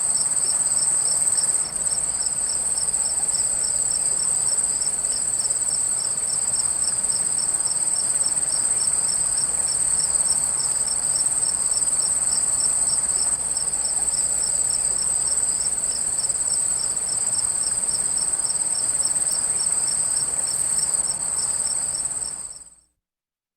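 Crickets chirping, one as a steady high trill and another as a rapid pulsing chirp, over the even rush of a flowing stream. Everything fades out near the end.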